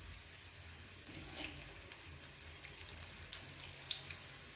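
Spring onion pakoras shallow-frying in hot oil: a faint steady sizzle with scattered crackles and pops as more gram-flour batter is dropped into the pan.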